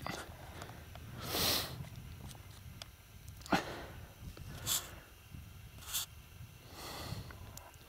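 Five short breathy puffs, like sniffs or snorts, close to the microphone, over a low wind rumble.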